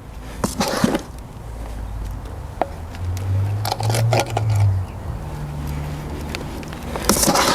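Peat-free-style potting compost being scooped and tipped around a plant's root ball in a container, heard as three short gritty scrapes and pours: about half a second in, around four seconds in, and near the end. A low hum that shifts in pitch runs underneath.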